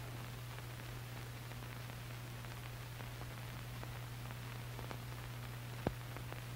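Soundtrack noise from an old film print: a steady low hum and hiss, with faint scattered crackles and one sharp click near the end.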